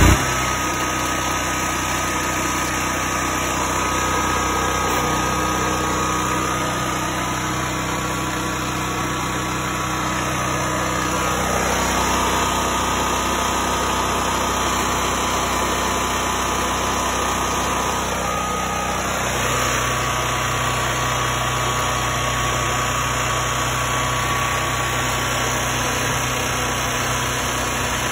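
Westinghouse WGen9500DF dual-fuel portable generator running steadily on propane just after starting, before any charging load is switched on. Its note shifts slightly a few times.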